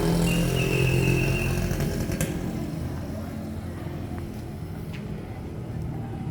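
A motor vehicle engine passing close by, loudest at the start and fading away over the next few seconds, with a brief high steady tone about a second long near the start.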